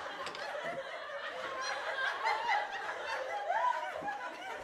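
Faint, thin-sounding snickering and chuckling laughter, with no bass to it.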